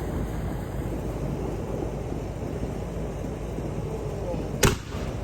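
Steady low outdoor rumble, then a single sharp firework bang about four and a half seconds in, from a "big boomer".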